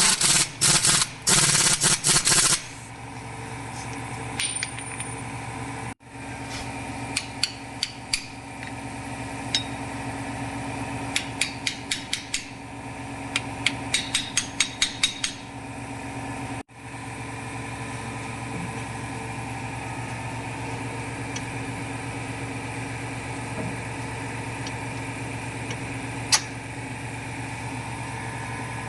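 Workshop tool work on a car: loud rattling bursts in the first two or three seconds, then runs of quick metallic taps and clicks. A steady machine hum runs underneath.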